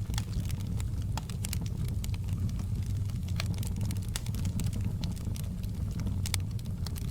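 Fire in a fireplace crackling: irregular sharp pops scattered over a steady low rumble.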